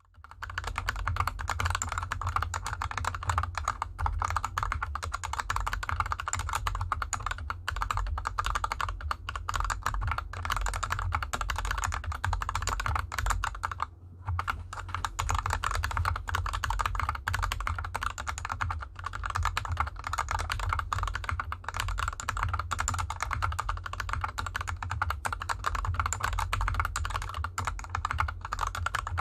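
Fast, continuous typing on a mechanical keyboard, a GK64X with lubed Gateron Yellow linear switches and DSA keycaps, set on a desk mat over felt fabric. The clicking stops briefly about halfway through, then resumes.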